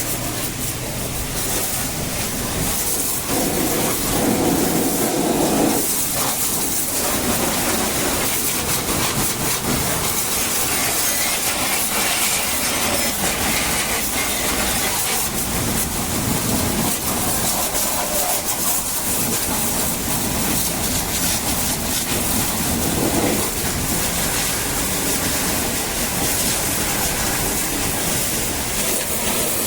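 High-pressure water jet hissing steadily as it sprays onto a backhoe loader during a wash, the spray noise swelling and changing as the jet moves over the machine.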